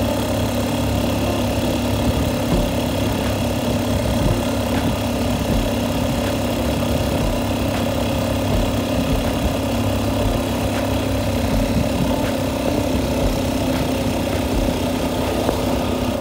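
Vehicle engine running at a steady speed while on the move, one even drone that holds unchanged, over a steady hiss of road and air noise.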